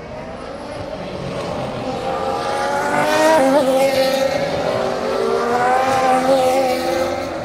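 Formula 1 car's 1.6-litre turbocharged V6 engine passing at speed: it grows louder, its pitch dips sharply through downshifts about three and a half seconds in, then climbs again as it accelerates away and eases off near the end.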